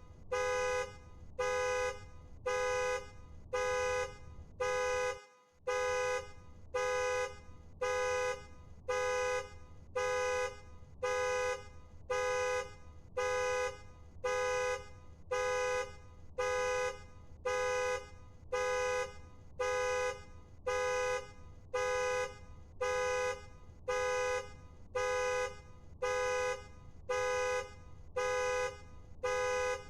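Car alarm honking the car's horn over and over, about one blast a second, each blast a two-note horn chord.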